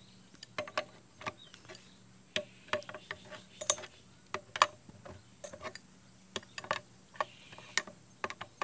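Adjustable wrench clicking against the saddle clamp nut on a bicycle seat post as the nut is loosened. Irregular sharp metal clicks, about two a second.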